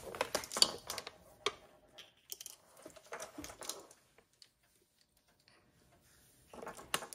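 Scattered light clicks and crinkles of a thin plastic water bottle being handled and tipped over a mixing bowl, dying away to near quiet about four seconds in.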